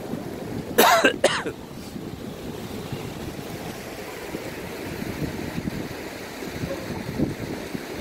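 A person coughs twice in quick succession about a second in, over a steady rush of wind noise on the microphone.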